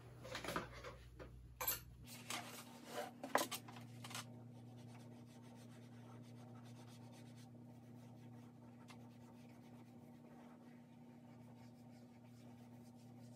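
Drawing strokes scratching and rubbing across paper on an easel. The strokes are plainest in the first four seconds, then turn faint over a low steady hum.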